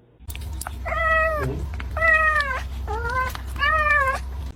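A cat meowing four times in a row, each meow about half a second long and falling in pitch at the end, over a steady low hum.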